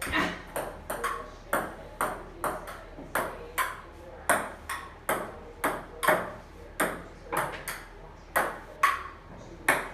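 Table-tennis ball in a long rally, clicking back and forth off the paddles and a wooden table top, about two to three hits a second.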